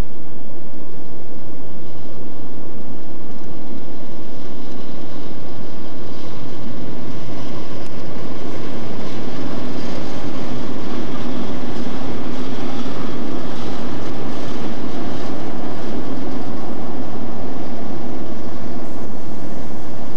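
Diesel-electric freight locomotives running, a steady heavy engine rumble that grows fuller through the middle.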